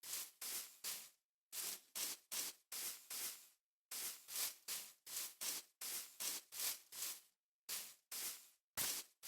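Rapid bursts of static hiss, about twenty in all, each a fraction of a second long, in uneven clusters with dead silence between them.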